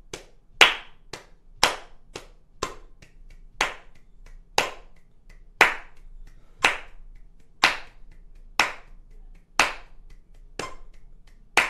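Hand claps in a steady rhythm: a strong clap about once a second, with lighter claps subdividing the beat between them.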